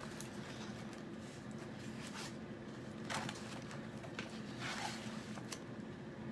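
Soft, scattered swishes and rustles of hands smoothing down and handling a plastic chalk-transfer stencil on a fabric pillow, over a steady low hum.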